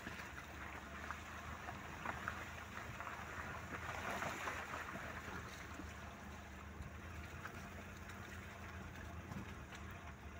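Maruti 800's small three-cylinder petrol engine running at low speed with a steady low hum, its tyres crunching over a rough, stony dirt track. The tyre and road noise swells about four seconds in.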